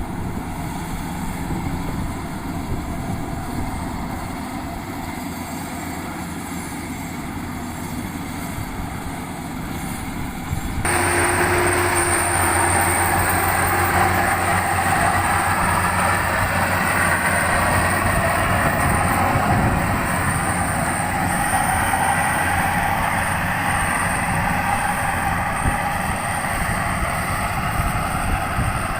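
Bimo 102 rice combine harvester running steadily, with its engine and machinery making a continuous rumbling clatter. About eleven seconds in, the sound jumps suddenly louder and brighter, then stays steady.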